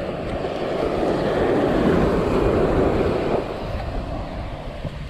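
Surf washing up the sand: a rushing swell of water noise that builds about a second in and falls away after about three and a half seconds.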